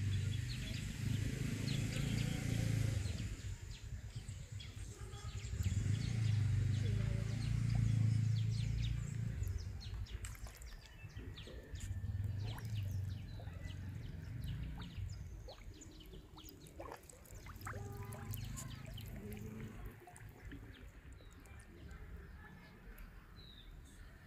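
Birds chirping faintly over a low rumble that swells and fades several times, loudest about a third of the way through.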